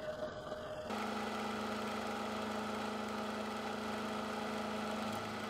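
Milling machine running while machining steel tube parts, a steady mechanical hum with a low tone. The sound shifts about a second in to a slightly louder, even hum.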